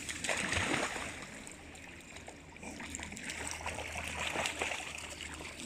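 Irregular splashing and sloshing of water, with a rushing surge in the first second or so.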